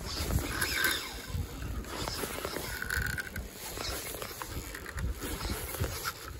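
Spinning reel being wound hard under the load of a hooked yellowtail, with rough handling and wind noise on the microphone. A brief higher-pitched buzz comes about three seconds in.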